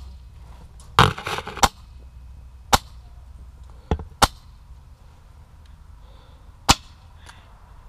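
Airsoft guns firing single shots: about six sharp cracks at irregular intervals, the first two joined by a short noisy burst.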